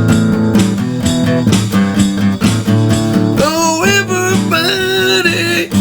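Instrumental break of a bluesy country song with steady strummed guitar chords; a wavering melody line with bending notes comes in about three seconds in.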